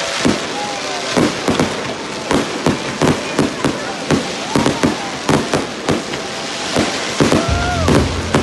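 Fireworks going off: a rapid, irregular series of loud bangs and crackles, several a second.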